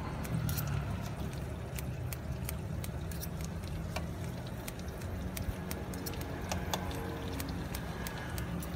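Scissors snipping through fried tofu and ketupat rice cake, a string of short, irregular metallic clicks, over a steady low rumble.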